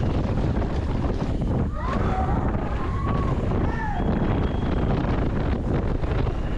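Wind buffeting the microphone of a mountain bike speeding downhill, a steady loud rush. A few short high-pitched curved tones cut through it about two to four seconds in.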